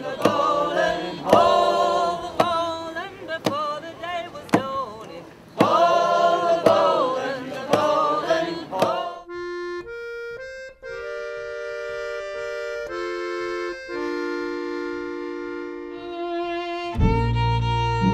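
Folk music. For the first half, voices sing over a steady beat. Then an accordion plays alone in held notes, and a bass and other instruments come in near the end.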